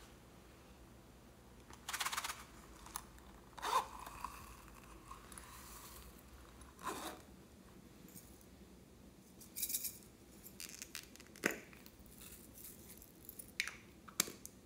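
Small plastic containers being handled over a glass dish of slime: a handful of short clicks, scrapes and rattles, a second or two apart, as glitter and sequins are shaken out onto the slime.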